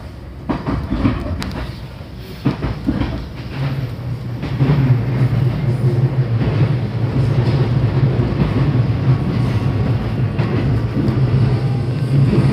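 Local passenger train running on the rails, heard from inside the carriage. Wheels click over rail joints at first, then about four seconds in a louder, steady low drone sets in and holds.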